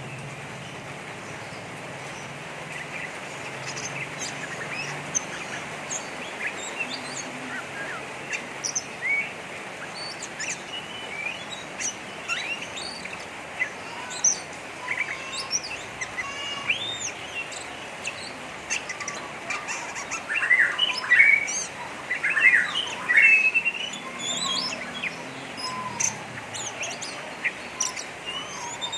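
Oriental magpie-robin (kacer) giving its harsh 'ngeriwik' chatter: a rapid string of short chirps and quick rising and falling whistles, the kind of call played to provoke other kacer birds. It grows busier and louder about two-thirds of the way through, over a steady hiss.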